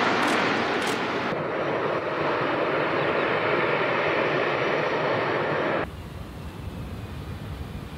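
Jet airliner engine noise, a steady loud rush without distinct tones. The sound changes abruptly about a second in, then drops sharply about six seconds in to a quieter, lower rumble.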